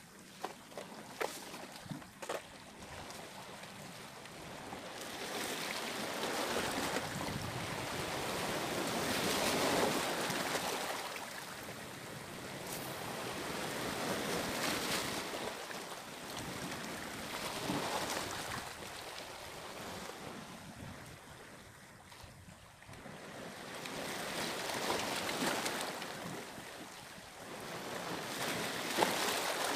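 Sea waves washing onto a rocky shore, swelling and fading in slow surges every few seconds.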